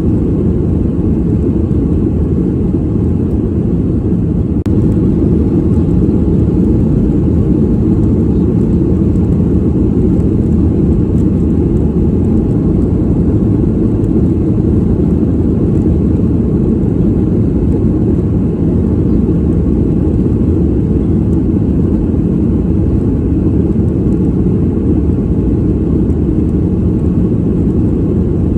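Airliner cabin noise heard from a passenger seat: a steady, even low rumble of engines and airflow in flight.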